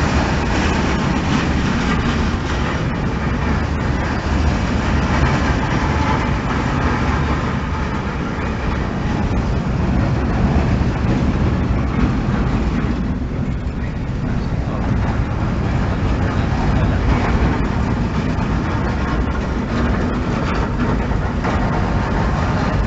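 A freight train of empty car-transport wagons rolling past: steady noise of steel wheels running on the rails, with faint clicks through it.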